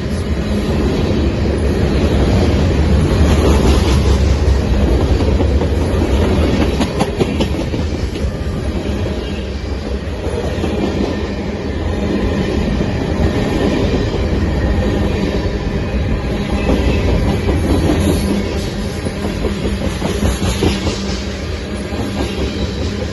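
A train running on the rails: a steady loud rumble with scattered irregular clicks.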